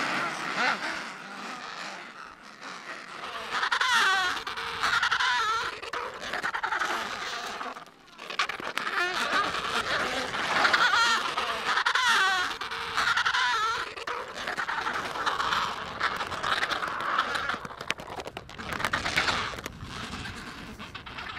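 Adélie penguins calling in a colony: rapid, pulsing calls that waver in pitch, coming in several bouts with short pauses between.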